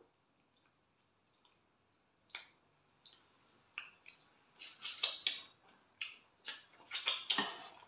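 Wet eating noises: smacking and clicking mouth sounds of people chewing soft fufu with okra soup, sparse at first and coming thick and fast from about halfway through.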